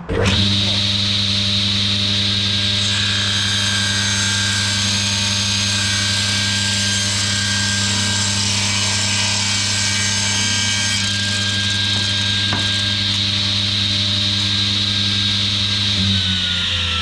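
Table saw switched on and running steadily while a board's edge is ripped straight on a jointing sled, the cut filling the middle several seconds. Near the end the saw is switched off and its pitch starts falling as the blade winds down.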